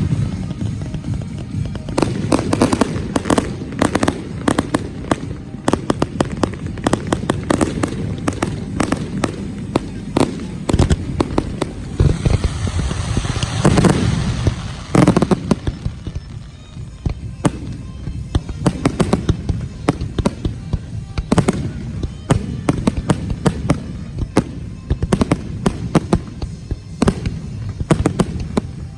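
Aerial firework shells launching and bursting in rapid succession during a finale, heard close to the launch site: a dense, continuous run of sharp bangs and booms, with a thicker stretch of hiss about halfway through.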